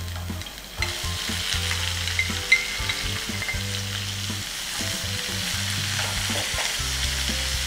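Sliced onion sizzling in hot oil in a non-stick frying pan, the sizzle swelling about a second in as the slices go in. A wooden spatula scrapes and stirs the onion through the oil.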